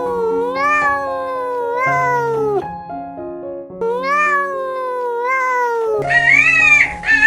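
Cat meowing: two long, drawn-out meows that rise and then fall in pitch, over background music. Near the end a louder, higher-pitched cry begins.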